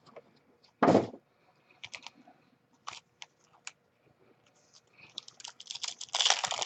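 Cardboard card boxes and foil packs being handled: a thump about a second in, a few scattered clicks, then a dense run of crinkling and clicking near the end as the next box is opened.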